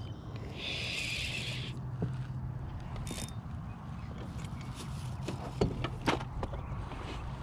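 Fishing rod and spinning reel handled in an aluminium boat: a short rasping whir from the reel about a second in, then scattered clicks and knocks against the boat over a steady low hum.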